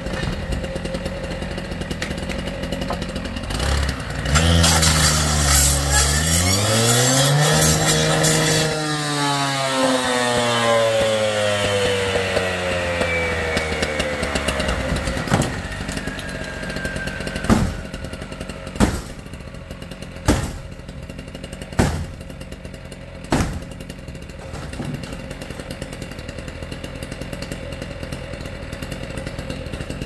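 Gas-powered rotary cut-off saw running, revving hard for about four seconds, then dropping back as its spinning blade winds down with a long falling whine. Then five sharp strikes of an axe against the metal garage door panel, about a second and a half apart, with the saw ticking over.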